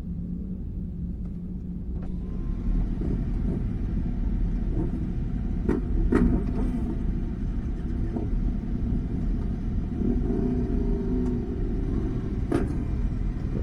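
Vehicle engine running with a steady low rumble, with a few sharp clicks and a brief wavering engine tone about ten seconds in.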